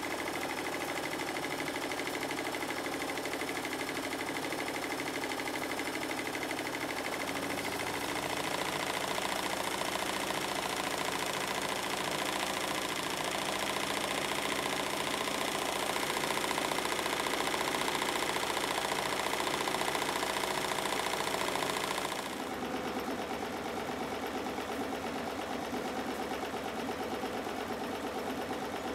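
Stuart Models triple-expansion three-cylinder model steam engine running on live steam, with a fast, steady mechanical clatter. The sound grows louder about a quarter of the way in and drops back abruptly about 22 seconds in.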